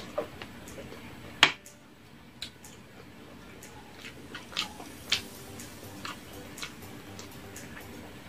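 Close-up eating sounds of someone chewing saucy barbecue pork ribs: irregular wet mouth smacks and clicks, about a dozen, the loudest about one and a half seconds in.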